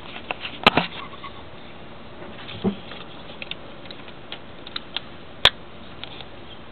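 A few scattered sharp clicks and light knocks. The loudest come just under a second in and about five and a half seconds in, with a duller knock near the middle.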